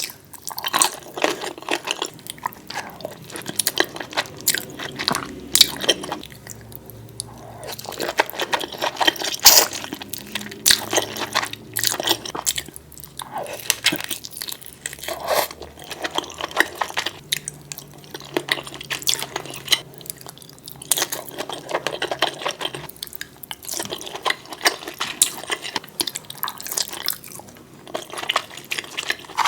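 Close-miked eating sounds of a person chewing and crunching seafood, made of dense, irregular wet clicks and smacks.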